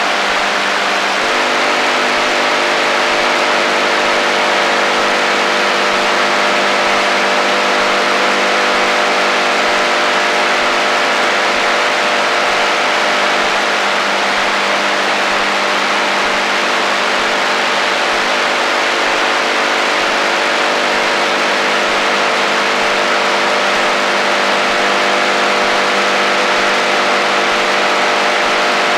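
AM shortwave (HF band) radio interference: steady loud static hiss with several steady humming tones layered under it. The set of tones shifts to a new pitch pattern about a second in.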